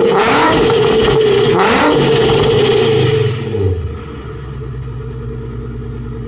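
Nissan 350Z's 3.5-litre V6 through a Nismo S-Tune exhaust, revved repeatedly with sharp blips, then falling back to a steady idle about three and a half seconds in.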